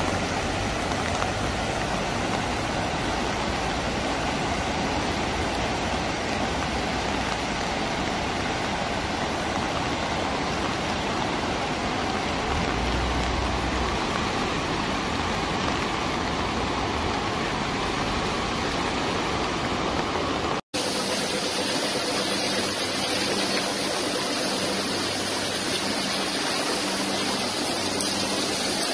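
Floodwater rushing across a road in a fast, broad torrent: a steady, even rush of water. About two-thirds through it cuts abruptly to a different recording, a thinner steady rushing noise with a faint hum.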